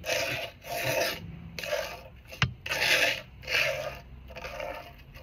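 Steel palette knife spreading thick chalk-and-glue gesso over a rough first ground layer on a gauze-covered wooden panel: a run of short scraping strokes, about two a second. A single sharp click about halfway through.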